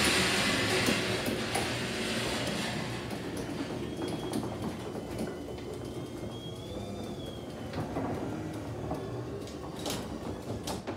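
Belt-drive garage door opener running the door along its rails: a steady mechanical rumble with a few clicks near the end, then it stops abruptly as the run ends.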